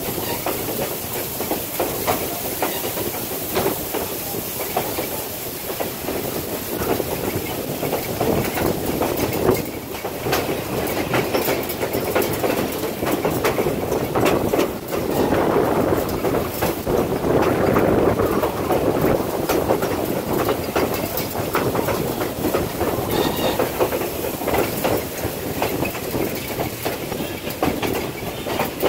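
Railroad passenger car rolling along the track: steel wheels clicking over rail joints above a steady rumble, a little louder for a few seconds just past the middle.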